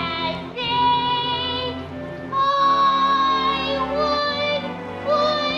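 A woman singing a melody in long, held notes with vibrato, in an operatic style, over a low instrumental accompaniment; the notes change about every second or two with short breaks between them.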